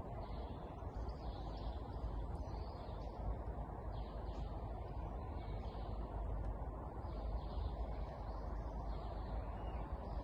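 Outdoor ambience: faint birds chirping now and then over a steady low background rumble.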